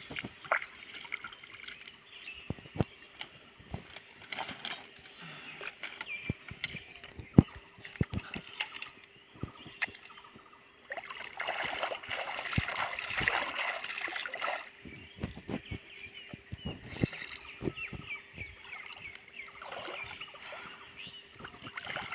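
Hands splashing and sloshing shallow pond water, scooping it over a bundle of sticks in irregular splashes, with a stretch of steadier continuous splashing about halfway through.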